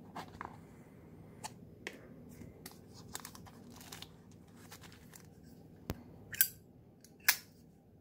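A cardboard lighter box and the clear plastic sleeve around a Zippo lighter being handled and unwrapped: light rustling and small clicks. Two loud, sharp snaps come near the end.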